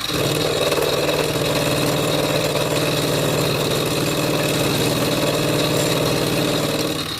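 A machine running steadily with a low, even hum, starting abruptly and stopping abruptly just before the end, over a constant high-pitched whine.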